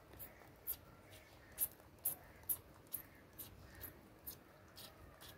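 Hand trigger spray bottle squirting liquid pesticide onto a plant stem: faint, short hissing squirts, about one every half second.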